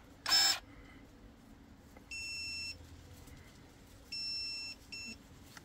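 Electronic beeper of a KEBTEK KTE-35 battery pruning shear: two steady beeps of about half a second, then a short third beep near the end. About a quarter second in there is one brief burst of noise.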